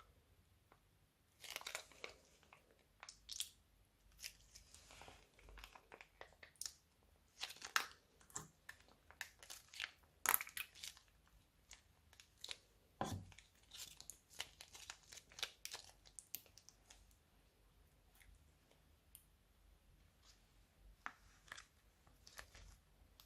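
Slime being squished and mixed, making irregular sticky crackles and small pops.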